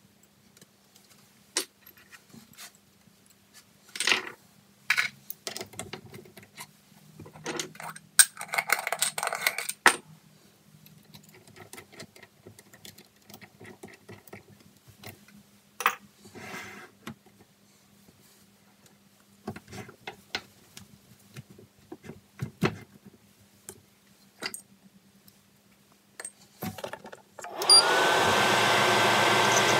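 Scattered metal clicks and clinks of hand work at a metal lathe: a chuck key turned in the four-jaw chuck and a drill bit fitted into the tailstock drill chuck. Near the end the lathe motor starts, spins up and runs steadily with a whine.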